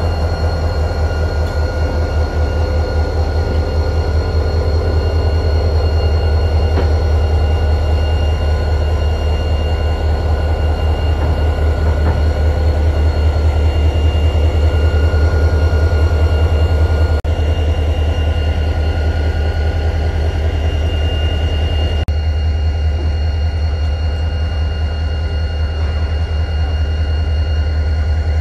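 Diesel-electric locomotive engine running as the CLP-class locomotive CLP9 moves slowly onto a turntable. It gives a heavy, steady low throb with a thin steady whine above it, and the sound eases slightly about three-quarters of the way through.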